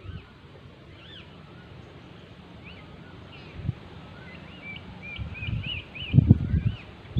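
Birds calling outdoors, repeated short rising-and-falling chirps, with a quick burst of rapid chirps near the end. A low knock partway through and a run of louder low rumbling bumps near the end, the loudest sound here.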